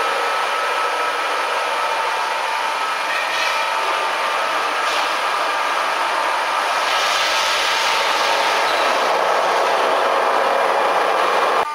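Machinery of a Peddinghaus CNC steel-feed line running steadily: an even mechanical hiss with a faint steady whine, growing somewhat brighter about seven seconds in.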